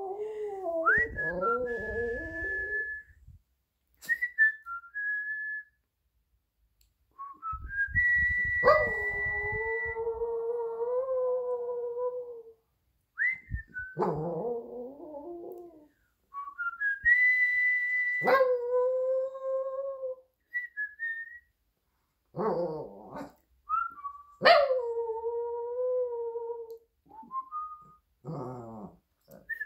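A Shih Tzu howling along with a person's whistling. Short, steady, high whistled notes take turns with the dog's howls, which drop in pitch and then hold a wavering pitch, several rounds back and forth.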